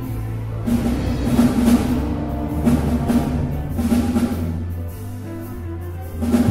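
Orchestral score played by a jazz and pop orchestra: sustained low bass notes under a quick repeating figure, with drum hits.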